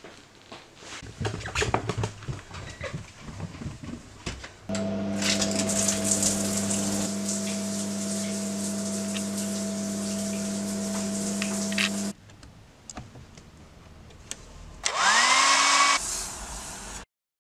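A handheld hair dryer running steadily with a motor hum and a rush of air, which stops suddenly. Before it come irregular rustles and small knocks, and near the end a short loud burst of rushing air opens with a rising whine, like a dryer spinning up.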